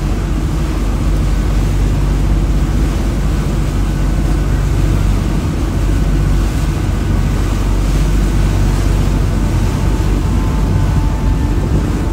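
Boat engine running steadily as a low rumble, mixed with wind on the microphone and the wash of rough breaking surf.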